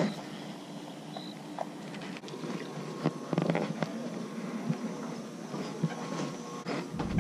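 Light knocks and rustles from a fishing rod being handled and steps on a wooden dock, with a cluster of knocks about three seconds in, over a faint steady hum.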